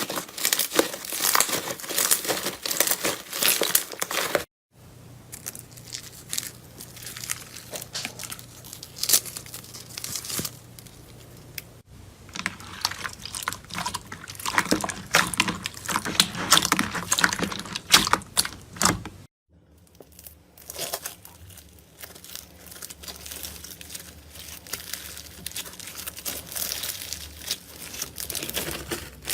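Close-miked slime being squeezed, stretched and pressed, giving dense crackling and crinkling sounds, across several short clips joined by brief silent gaps.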